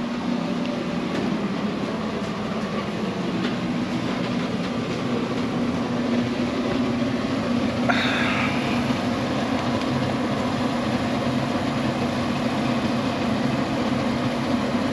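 Sailboat's marine air conditioning unit running with a steady hum, just brought back on after a repair. A brief noise cuts in about eight seconds in.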